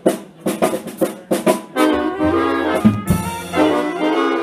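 Swing big band playing live: a run of short, clipped hits, then the brass section holding full sustained chords from about two seconds in.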